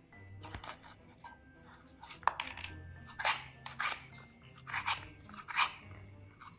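Metal spoon scraping the seeds and pith out of a halved bitter melon, in about six short scraping strokes that begin about two seconds in.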